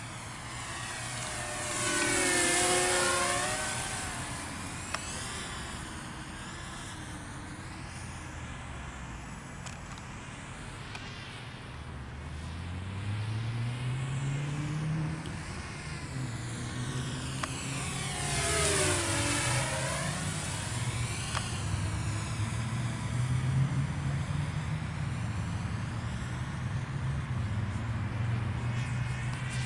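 Walkera F210 racing quadcopter's motors and propellers whining as it flies past twice, about two seconds in and again about eighteen seconds in. Each pass is loudest as it goes by, with the pitch sweeping down and back up. A low steady hum runs underneath from about twelve seconds on.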